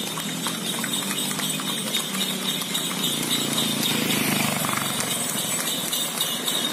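Horses' hooves clip-clopping on an asphalt road in quick, irregular beats as several single-horse carriages trot past.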